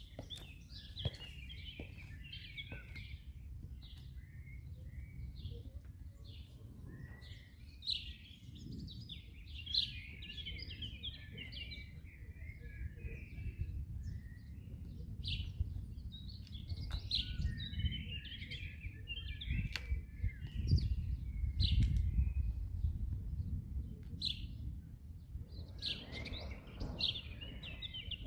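Small birds chirping and twittering continuously over a low rumble that swells about two-thirds of the way through, with a few sharp taps of leather riding-boot heels on concrete paving stones.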